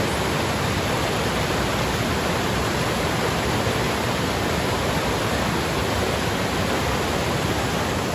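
Mountain stream in a rocky gorge rushing steadily, a constant roar of fast water. It is running high and full after heavy rains.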